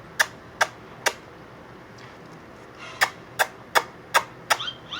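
Kissing smacks in answer to a 'kiss, kiss' cue: three in the first second, then after a pause five more about 0.4 s apart. A brief high chirp follows near the end.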